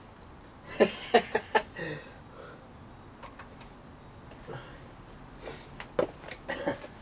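A series of sharp clanks and knocks in two bunches, about a second in and again near the end, over a quiet room; no engine is running.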